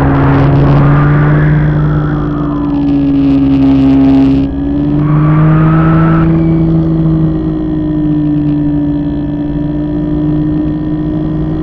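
RC airplane's motor and propeller droning steadily as heard by the onboard camera, its pitch sagging and rising slightly with throttle. A rushing hiss of air comes and goes in the first half.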